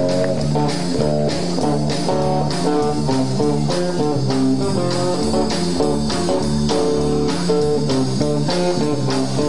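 A live blues band playing an instrumental: electric guitar over bass guitar and a drum kit keeping a steady beat of about two strokes a second.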